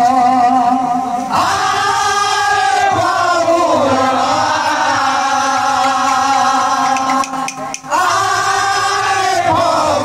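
Men singing a folk chant in long held notes, each phrase sliding down at its end, with a brief break about seven and a half seconds in.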